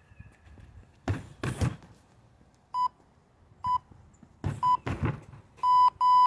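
Kicks thudding against a freestanding kick bag, mixed with a workout interval timer beeping about once a second. Three short beeps are followed by a longer beep near the end, the countdown that marks the end of a round.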